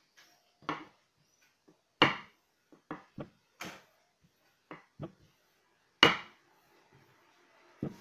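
A rolling pin knocking and rolling against the tabletop as dough is rolled out: about ten irregular sharp knocks, the two loudest about two and six seconds in.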